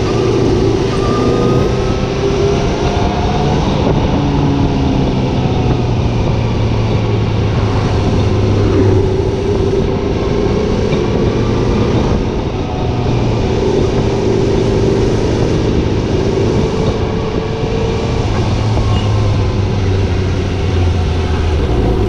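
Motorcycle engine running under way at road speed, its note drifting gently up and down with the throttle, under a steady rush of wind noise.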